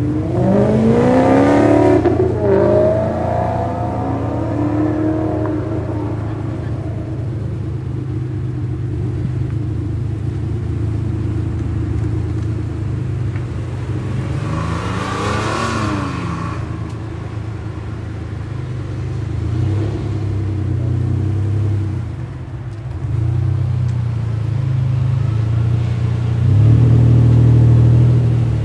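Sports car engines revving as cars pull away: a hard, rising rev in the first few seconds and another rev that climbs and falls off about fifteen seconds in. Under them a car engine idles steadily, growing louder near the end.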